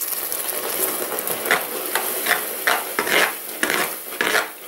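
Water poured onto hot caramelized sugar in a metal pot, setting it sizzling and bubbling up; from about a second and a half in, a spoon stirs and scrapes around the pot in quick repeated strokes.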